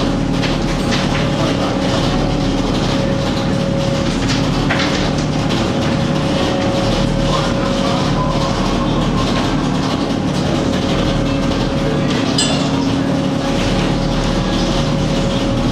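Fishing boat's engine running, a steady mechanical drone with several held low tones, with a few light clicks from longline gear being handled.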